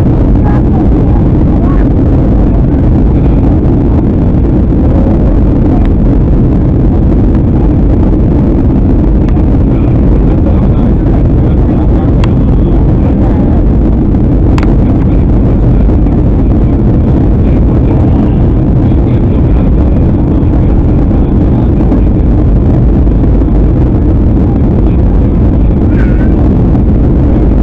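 Steady rumble of an airliner cabin in flight, the engine and airflow noise holding level throughout, with a faint click about halfway through.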